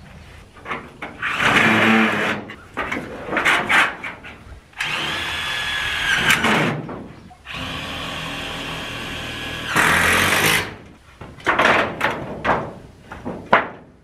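Sheets of corrugated roofing tin clattering and scraping as they are handled and set against a wall. Twice, in the middle, a power drill runs steadily for about two seconds each time, as it would when driving screws to fasten the tin.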